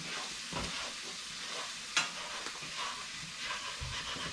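Onions frying in hot oil in a skillet, sizzling steadily as they are stirred, with one sharp clink about two seconds in.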